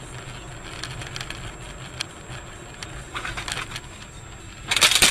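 Dashcam audio from inside a moving car: steady road rumble, then a car crash close ahead, with scattered clattering about three seconds in and a sudden loud crunching burst near the end.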